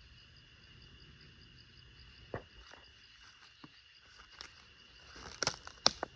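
Crickets or other night insects chirring steadily in high, pulsing tones, with a few sharp crackles and snaps, like leaf litter or twigs underfoot, scattered through the second half and loudest near the end.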